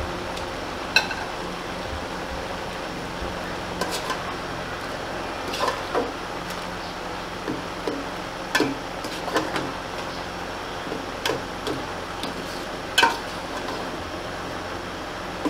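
Metal spoon stirring and tossing cooked red amaranth leaves with onion and chilli in an aluminium pot, scraping and clanking irregularly against the pot, with a ringing clink about a second in and another near the end, over a steady hiss.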